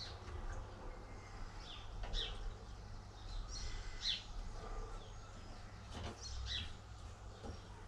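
Birds calling: a series of short, high chirps that fall in pitch, about one or two a second, over a low rumble.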